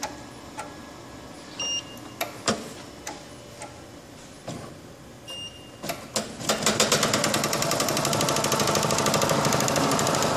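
Spangle film motif punching machine: a few scattered clicks and two short beeps, then about six seconds in the machine starts up and runs in a fast, steady clatter.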